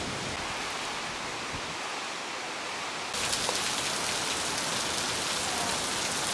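Steady rain hiss that steps up suddenly about three seconds in to a louder, brighter heavy downpour pouring onto a wooden deck.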